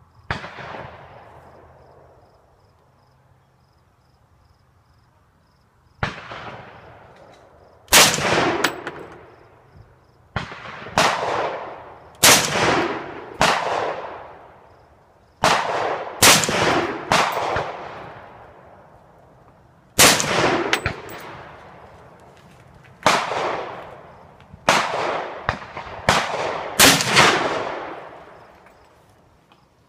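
Gunshots fired at a range, about eighteen in an uneven string, some in quick pairs or threes, each trailing off in a long echo.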